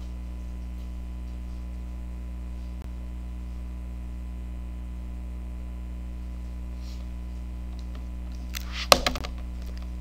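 Steady low electrical hum, with a short cluster of sharp clicks and one louder knock near the end.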